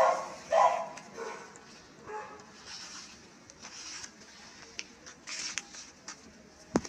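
A dog barking twice in quick succession, then a couple of fainter barks. A few sharp clicks follow in the second half.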